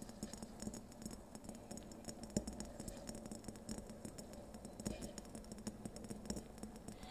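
Faint crackling and ticking of water starting to bubble in the glass lower bulb of a siphon coffee maker over an alcohol burner, with one sharper click about two and a half seconds in as the upper glass chamber is pushed into its seat.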